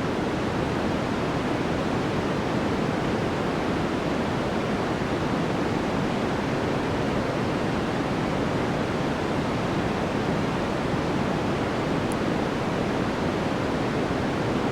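White noise sample playing: a steady, even hiss that sounds like heavy rain.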